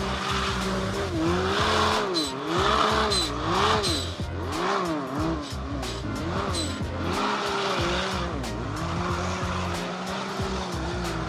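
ATV engine revving up and down over and over, with music playing underneath.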